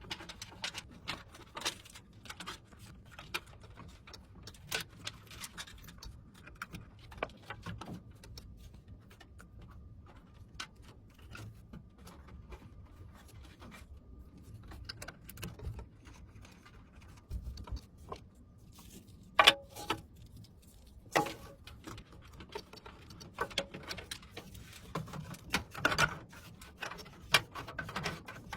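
Irregular small clicks, taps and light knocks of computer hardware being handled during a PC build, with two sharper knocks about two-thirds of the way through.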